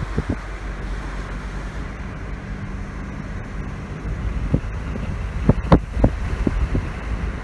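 Car driving slowly, a steady low rumble of engine and road with wind buffeting the microphone. Several sudden low thumps come in the second half, the loudest about two thirds of the way in.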